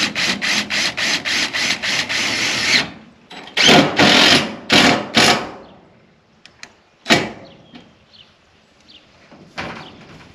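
Cordless drill driving self-sealing screws through a ribbed steel siding panel into the wood framing: a run of quick, even pulses for about three seconds, then three short bursts of driving. A sharp knock comes about seven seconds in, and one more short burst near the end.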